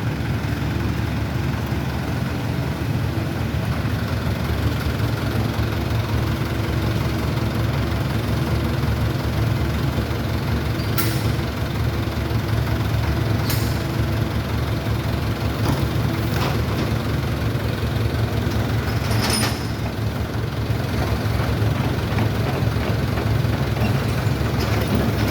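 XCMG XE55DA mini excavator's diesel engine running steadily with a low hum. A few short, sharp sounds break in partway through.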